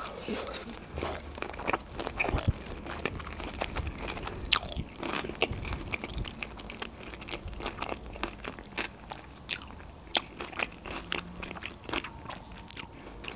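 Close-miked chewing of a mouthful of sushi roll, with many irregular crunchy clicks.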